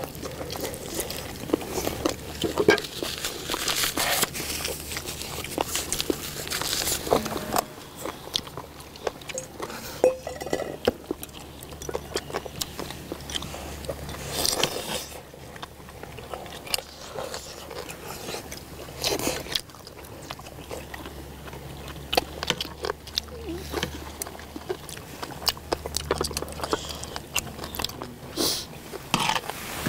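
Close-up eating sounds: people biting into and chewing braised spicy chicken drumsticks, with many irregular wet smacks and clicks.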